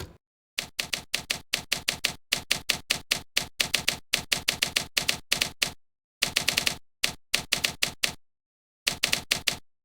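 Rapid sharp mechanical clicks, about six a second, in runs of strikes broken by short pauses, like keys being struck.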